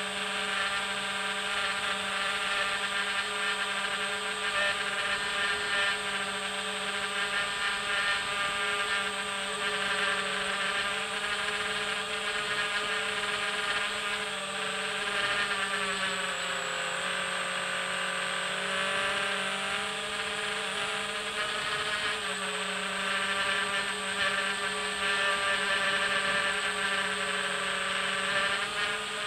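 A small electric drone's motors and propellers buzzing steadily in flight. The pitch drops for several seconds around the middle, then comes back up.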